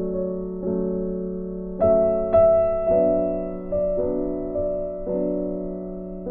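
Slow, soft piano music: sustained chords struck about once a second, each fading before the next.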